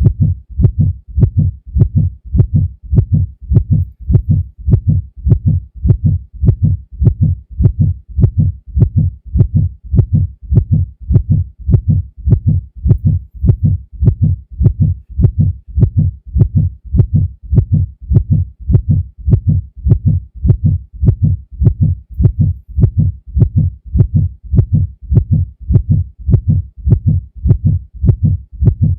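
Heartbeat sound effect: a steady, even rhythm of low double thumps at about one beat a second.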